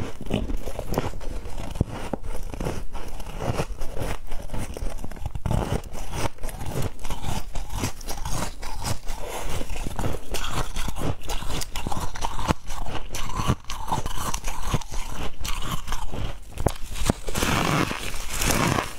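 Close-up biting and chewing of freezer frost: dense, crackly crunching that goes on steadily, with a louder, hissier crunch near the end as a fresh bite is taken from the frost chunk.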